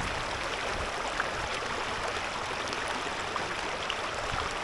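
Steady rush of a rocky mountain river flowing over stones.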